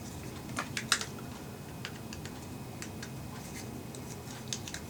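Small, sharp plastic clicks and taps from a quartz clock movement being taken apart by hand, scattered irregularly: a few around one second in, a couple near two seconds and a quick cluster near the end.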